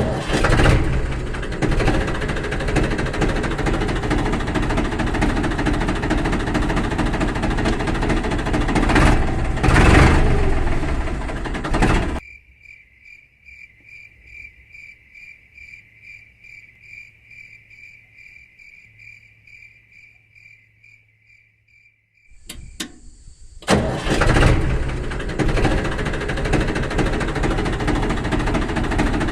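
Small engine of a DIY miniature tractor running loudly and steadily, then cutting off suddenly about twelve seconds in. In the quiet gap a faint high beep repeats rapidly for about ten seconds. The engine then starts up and runs again for the rest of the stretch.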